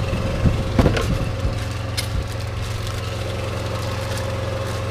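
Truck engine idling with a steady low hum. In the first two seconds there are a few clicks and a rustle as a plastic bag of parts is handled.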